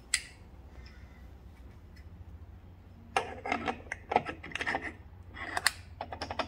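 Malossi Multivar 2000 variator being slid over the splined crankshaft end and worked into place: metal-on-metal scraping and clicking. One click at the start, then bursts of it from about three seconds in, with quick ticks near the end.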